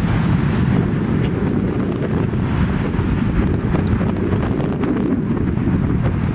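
Wind buffeting the camera's microphone: a steady, loud low rumble.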